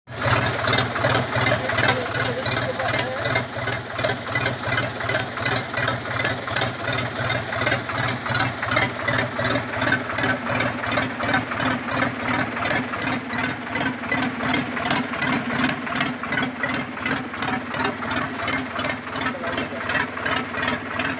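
Sonalika DI 35 tractor's diesel engine idling steadily, with an even pulsing beat of about three a second.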